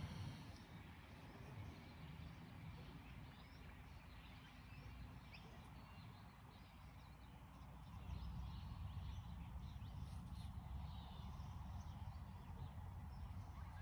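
Faint outdoor ambience: scattered short bird chirps and calls over a low, steady rumble that grows louder about eight seconds in.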